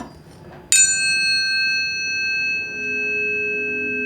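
A tuning fork is struck about three-quarters of a second in and rings on with several steady high tones that fade slowly. Lower steady tones swell in near three seconds.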